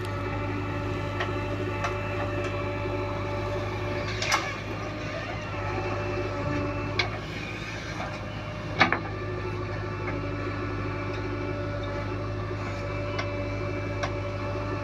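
JCB backhoe loader's diesel engine running steadily at work, with a few sharp metallic knocks, the loudest about four and nine seconds in.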